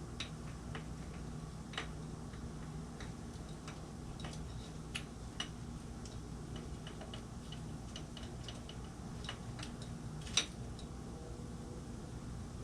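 Scattered light clicks and taps of small motorcycle handlebar control parts being handled and worked on by hand, with one sharper click about ten seconds in. A steady low hum runs underneath.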